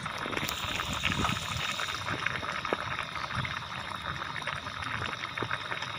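Goat-head broth bubbling steadily as it cooks in a metal pot, a continuous watery simmer with many small pops from the bubbles breaking at the surface.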